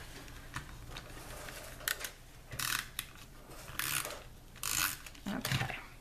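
Snail tape-runner adhesive dispenser rolled across cardstock in several short strokes, each a brief scraping rattle of the roller laying down adhesive.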